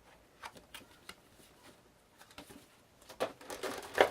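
Cardboard packaging being handled: a few light taps and scrapes, then a busier run of rustling and clicks near the end.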